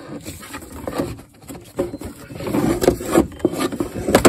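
Handling noise as a rubber power steering drive belt is worked by hand around the plastic blades of the engine's clutch fan, with the engine off. Rubbing and scraping with irregular knocks, busier in the second half, and a sharp click near the end.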